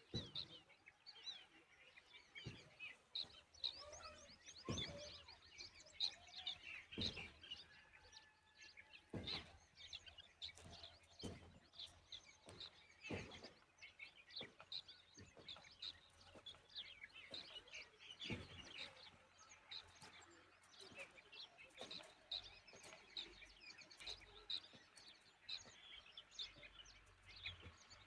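Faint chirping of birds: many short, high chirps, one after another, with a few soft knocks in between.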